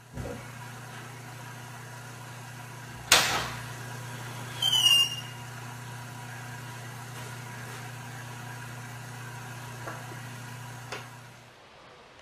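A door being opened over a steady low hum: a sharp latch click about three seconds in, then a short high squeak from the hinge about a second and a half later. A couple of faint ticks follow, and the hum stops near the end.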